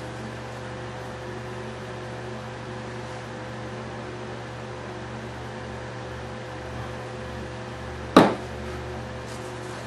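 Steady machine hum with a few fixed tones, and a single sharp knock about eight seconds in, the loudest sound.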